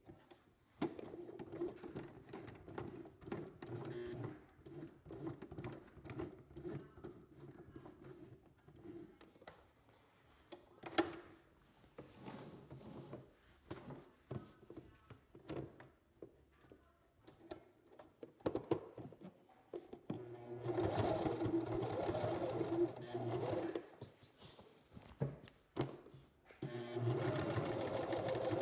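Domestic sewing machine edge-stitching, stop-start: slow, uneven stitching for the first several seconds, then two faster, steady runs in the last third, louder than the start.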